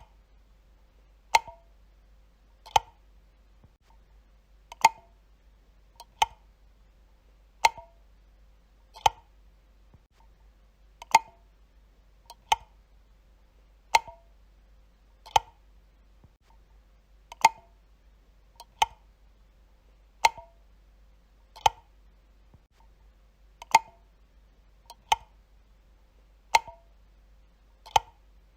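Light switch being flicked on and off repeatedly: single sharp clicks, about one every one and a half seconds, in a small room.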